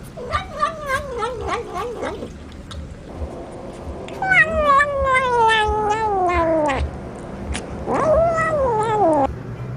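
Cat calling three times: a wavering yowl, then a long falling meow, then a shorter meow that rises and falls. Small clicks of a kitten chewing fish come in between.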